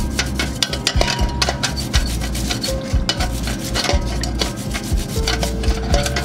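A toothbrush scrubbing a bicycle chainring and rear derailleur in a bucket of degreaser, in quick, repeated wet rasping strokes. This is the parts being degreased.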